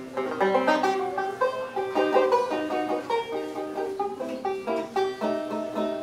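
Plectrum banjo played solo with a pick: a quick, continuous run of bright plucked notes and chords.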